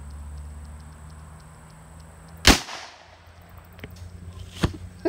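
A single shot from a J.P. Sauer & Sohn .357 revolver firing a CCI #9 shotshell, about halfway through. A few fainter sharp knocks follow near the end.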